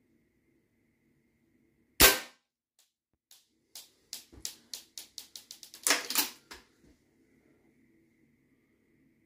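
A single shot from a .177 HW90K gas-ram air rifle about two seconds in, followed by a quickening run of light clicks and rattles, loudest about six seconds in.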